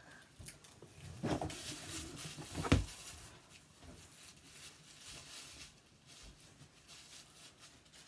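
Handling noise from a phone camera being propped up, with two thumps in the first three seconds, the second the loudest. Then faint rustling and shuffling from someone moving and turning in a small room.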